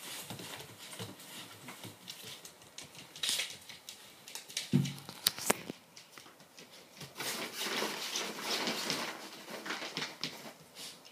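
Miniature Bull Terrier puppy's claws pattering and clicking on a hardwood floor as it scampers and plays, with scuffling against fabric. A brief low-pitched sound cuts in about five seconds in.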